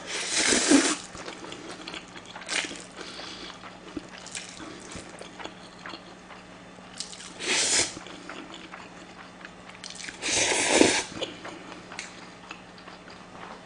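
Somyeon noodles with spicy whelk salad slurped into a close microphone three times: at the start, about halfway through and again about three quarters of the way in. Wet chewing and small mouth clicks come in between.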